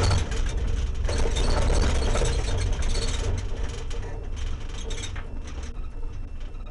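Patrol car's engine and tyres on a dirt road, running loud for about three seconds and then growing quieter as the car slows down.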